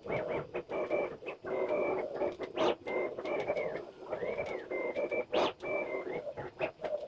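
CNC router's stepper motors whining through a series of rapid gantry moves, sped up four times, so that each move comes out as a short rising-and-falling chirp, with sharp clicks between them.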